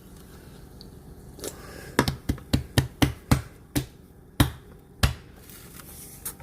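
A person gulping fizzy sparkling water: a quick run of about ten sharp swallowing clicks, then two more spaced out.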